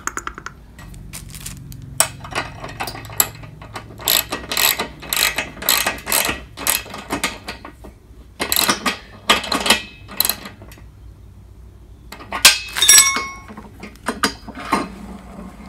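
Socket ratchet clicking in quick runs as the wheel's axle bolt is tightened against a spanner. A metal clink with a brief ringing tone comes late on.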